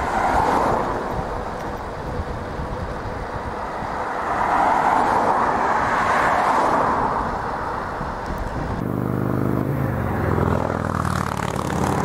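Road traffic passing: the tyre and engine noise of passing cars swells by twice. About nine seconds in, a motor vehicle's engine drone with a steady pitch takes over.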